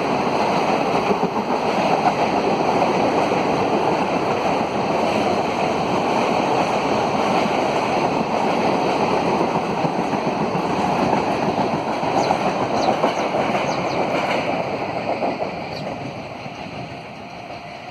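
Passenger express train running through at about 75 km/h: a steady rush of wheel and coach noise with a few sharp clicks near the end, fading away over the last couple of seconds.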